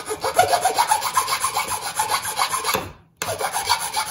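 Flat metal hand file scraping back and forth over clipped-off rusty nail stubs in an old barn-wood board, filing them down flush. The strokes are quick and short, several a second, with a brief pause about three seconds in.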